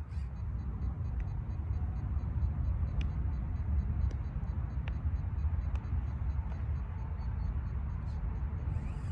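Simulated ZIL-131 V8 engine from the 1:12 RC truck's sound module idling as a steady low rumble, with a few faint clicks now and then.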